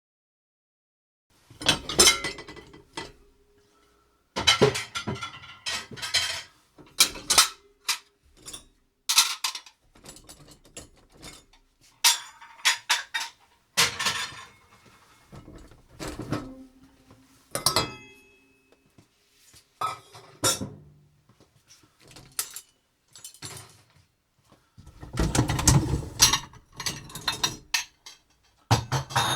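Dishes and cutlery being unloaded from a dishwasher: a string of separate clinks and knocks of crockery, glass and metal, some leaving a short ring, with a busier cluster of clatter near the end.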